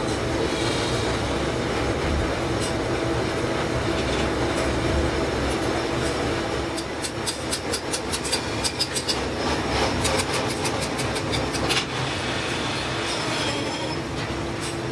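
Old gear-cutting machine running while it cuts teeth into a stack of steel sprocket blanks: a steady mechanical clatter with a constant hum, and a stretch of rapid sharp clicks, about six a second, in the middle.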